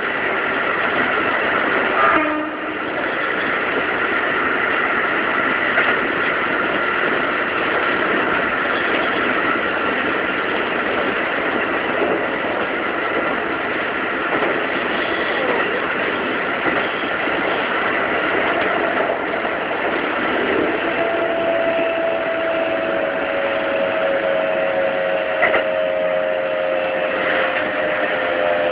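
Keikyu 2100-series electric train (set 2133, Siemens GTO VVVF inverters) heard from inside the leading car while running: a steady rumble of wheels on rail with steady whining tones and a few knocks from the track. From about two-thirds of the way in, a pair of lower tones slides slowly downward.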